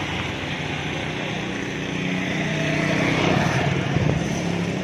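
Motorcycle engine running along the road, with road and wind noise; it gets louder about three seconds in.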